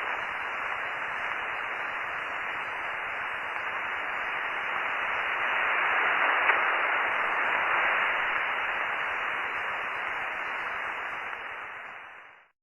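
Steady hiss of band noise from a Yaesu FT-950 shortwave receiver on the 10 m band, with no signal on the frequency. It has the narrow, muffled sound of single-sideband audio and swells a little midway. It fades out near the end.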